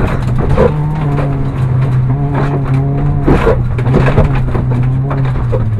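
Ford Fiesta rally car's engine pulling at steady revs, heard from inside the stripped cabin, with frequent sharp knocks and rattles from the car running over the snowy, rough surface.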